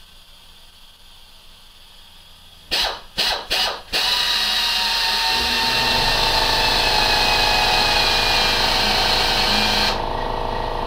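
Handheld electric drill drilling a hole through the side of a lathe's metal electrical box: three short trigger blips a little before halfway, then the drill runs steadily under load with a whine. About a second before the end the higher part of the sound drops away and it gets a little quieter.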